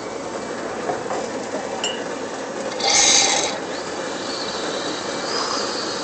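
Miele coffee machine running with a steady mechanical hum, broken about three seconds in by a short, loud hiss of steam.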